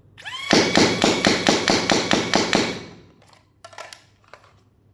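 AIT Lightning foam dart blaster's motors spin up with a short rising whine, then it fires a ten-dart magazine on full auto, about four to five shots a second, before winding down. A few light clicks follow.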